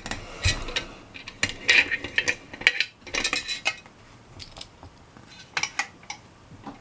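Metal clicks, clinks and a short rattle as a lock-picking vise and a brass lock cylinder are handled, moved and set down.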